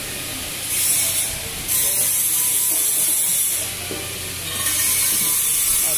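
Electric welding arc hissing and sizzling in bursts: a short burst about a second in, a longer one from about two seconds, and another starting a little past the middle.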